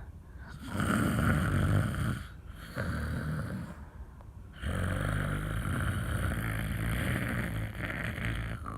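A woman snoring in her sleep, three rough snoring breaths in a row: two shorter ones in the first four seconds, then a long one lasting about four seconds.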